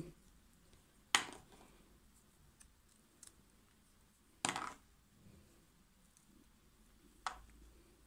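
Three short clicks of a kitchen knife and rose hips knocking against a glass plate and plastic bowl while the tips are trimmed off the rose hips one by one: about a second in, midway (a little longer, like a brief scrape) and near the end.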